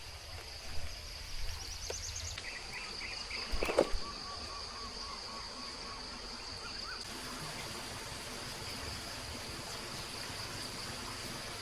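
Outdoor ambience by flowing water: a steady high insect buzz over the low rush of a stream. Strings of short repeated bird notes sound in the first half, with a few sharp knocks about three and a half seconds in.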